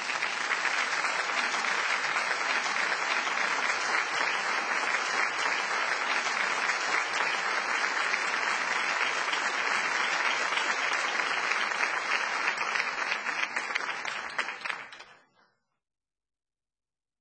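Theater audience applauding: a dense, steady clatter of many hands clapping, fading out about fifteen seconds in.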